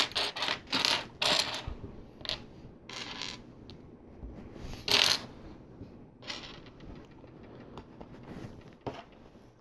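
Small plastic LEGO pieces, black Bionicle finger and tail parts, clicking and rattling as they are handled and snapped together, in irregular sharp clicks that thin out to faint handling noise after about six seconds.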